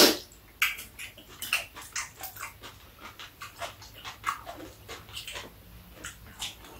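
Close-up eating sounds: chewing and lip-smacking, with chopsticks and a spoon clicking against bowls and plates, a quick run of irregular small clicks and smacks, a louder one right at the start.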